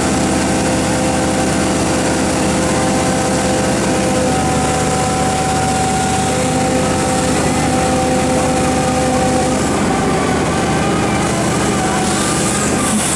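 Komatsu PC4000 mining excavator running steadily, its engine and hydraulics giving a constant drone with a higher whine held through the middle.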